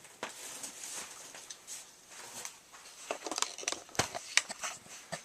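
Handling noises from die-cast model cars and their packaging: a run of light clicks and taps with some rustling, thickest about three to four and a half seconds in.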